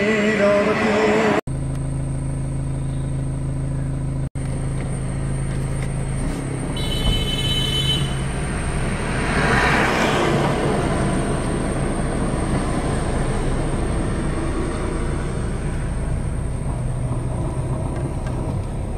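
Car driving along a road, heard from inside the car: a steady low engine hum and road rumble. There is a brief high-pitched tone about seven seconds in and a louder rush of noise about ten seconds in. Chanted singing is heard for the first second or so, then cuts off.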